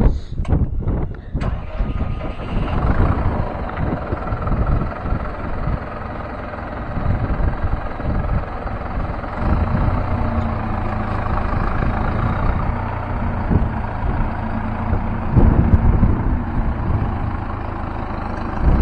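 Diesel excavator engine running under varying load, its low, steady note rising and falling as the machine works, with a few knocks in the first second or two.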